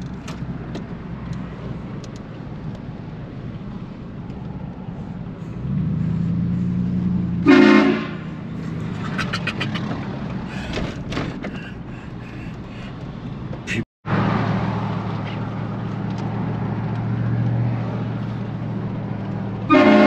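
HornBlasters aftermarket air horns on a pickup truck sounding in loud blasts, heard from inside the cab over the steady drone of the engine and road. The blasts come about a third of the way in and again at the very end.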